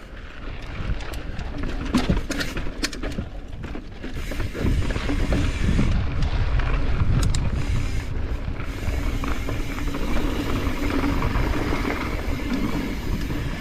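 A mountain bike ridden over a rough, technical trail: wind rumbling on the microphone, with repeated knocks and rattles of the bike over roots and rocks and the ticking of the freewheel.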